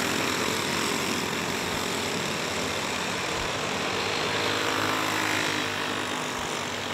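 Several go-kart engines running together as the karts race, a steady layered drone of small engines.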